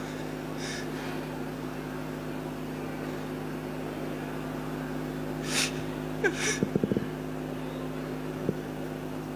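Steady electrical hum from the microphone and stage sound system, with two short sharp sniffs a little past the middle, followed by a quick run of soft knocks on the microphone and one more faint click near the end.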